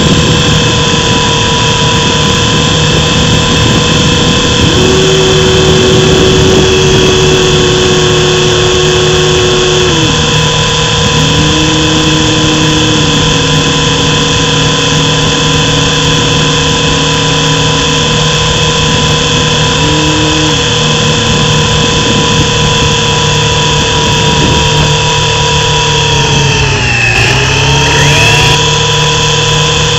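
Electric motors and rotors of a mini RC helicopter, heard close from a camera on the helicopter itself: a loud, steady multi-pitched whine, with shorter lower tones coming and going as the speed changes. About 27 s in, the whine dips sharply in pitch and then climbs back, as the helicopter comes down near the floor.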